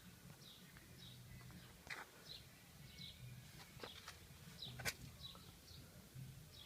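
Propeller shaft of a VAZ 21063 squeaking as the rear axle is turned with the wheel off. It makes a run of short, high squeaks, each falling slightly in pitch, one or two a second, with a couple of sharper clicks. The owner traces the squeak to the driveshaft.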